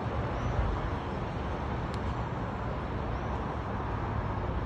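Steady low rumble of distant harbour and road traffic, an outdoor ambience with some wind on the microphone.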